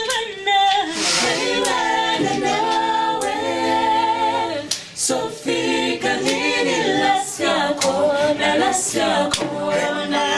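A choir singing a cappella, several voices in harmony, with a few sharp clicks here and there.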